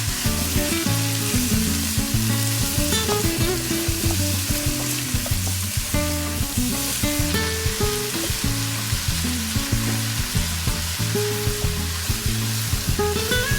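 Chicken and vegetables sizzling as they stir-fry in a pan, a steady frying hiss, over background music with a regular beat.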